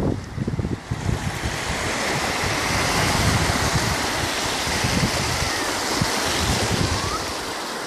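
Small waves washing in over shallow, sandy sea water in a steady hiss, with wind buffeting the microphone.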